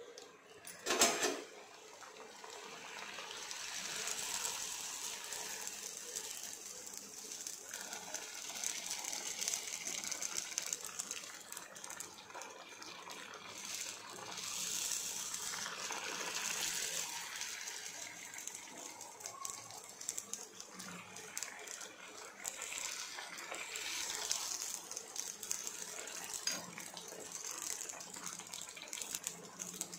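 Pani puri dough discs deep-frying in hot oil: a sudden loud sizzle about a second in as a disc goes into the oil, then a steady hissing sizzle that swells and eases as the puris puff up.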